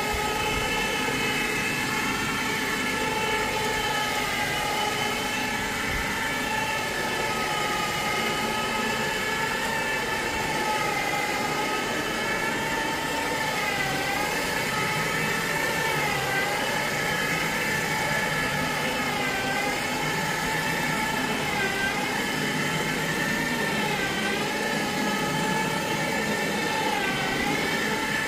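A vacuum motor, as on a carpet or upholstery cleaning machine, running with a steady whine. Its pitch dips briefly every two to three seconds in the second half.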